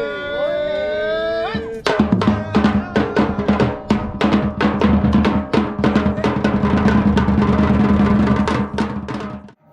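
Batucada percussion ensemble of Brazilian drums playing a dense, fast rhythm that starts about two seconds in, after a held, pitch-bending sustained tone. The drumming cuts off abruptly just before the end.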